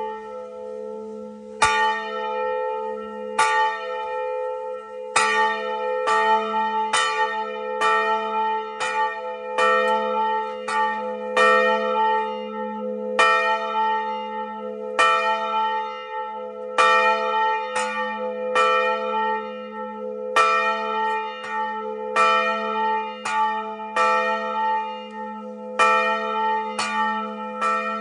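Church tower bells ringing, struck again and again about once a second in an uneven rhythm. Each stroke rings on over a steady low hum.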